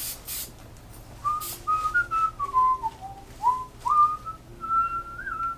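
A person whistling a tune, a single clear tone stepping and sliding up and down through a short melody from about a second in. A couple of short hissing bursts come just before it.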